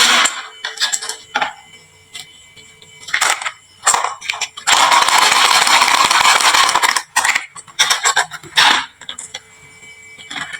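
Marbles clicking and rolling down a HABA wooden marble slope: scattered knocks and clicks, then a dense run of clatter for about two seconds midway as many marbles come down together.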